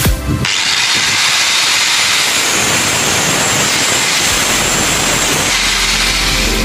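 Angle grinder with a thin cutoff disc cutting through a steel bicycle chain held in a vise: a steady, high-pitched grinding hiss that starts about half a second in.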